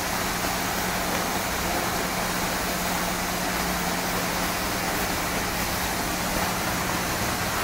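CNC plasma cutting machine running: a steady hiss with a low, even hum underneath, unchanging throughout.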